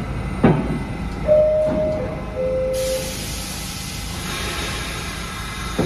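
New York City subway train standing at the platform over a low rumble: a knock, then a two-note falling chime, the signal that the doors are about to close. A steady air hiss starts suddenly just after the chime and keeps going.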